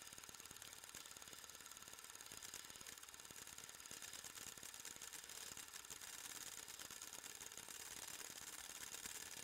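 Small 8mm movie film projector running, a faint, fast, even clatter of the film transport over a steady hiss.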